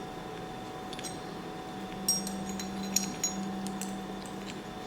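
A few light clinks and clicks as the metal arm of a car door check strap and its plastic repair-kit parts are handled and pressed together, over a steady low hum.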